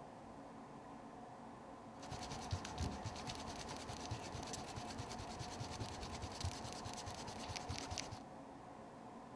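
Wooden pencil scratching rapidly across paper on a light table. A dense run of quick strokes starts about two seconds in and stops abruptly near the end. Faint steady hiss comes before and after.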